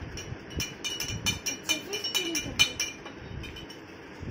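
A spoon stirring a drink in a glass jar, clinking against the glass several times a second, stopping near the end.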